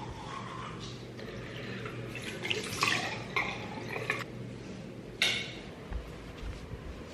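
Kitchen sink sounds: water running with dishes and utensils clinking, including a few sharp clatters in the middle, the loudest a little past five seconds in.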